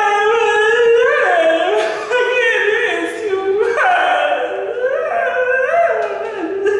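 Operatic singing: one voice holding long notes that slide up and down in pitch, with no spoken words.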